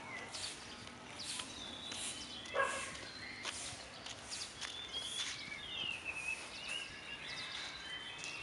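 Birds chirping, short gliding chirps and twitters, over a faint outdoor background with soft repeating hissy sounds.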